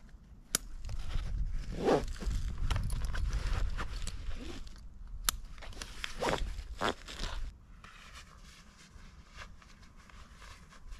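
Backpack being closed up by hand: quick zip pulls and two sharp clicks amid rustling and handling of the pack, quieter for the last few seconds.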